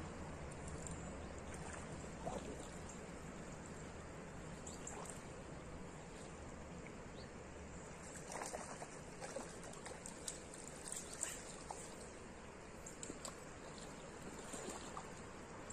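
Slow river flowing with a soft, steady trickle. About halfway through come a few light, irregular splashes and rustles as a fly angler moves through the shallows at the bank.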